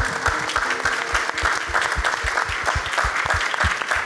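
Crowd applauding and cheering along to a drumline, with a low drum beat thumping about three to four times a second under the clapping.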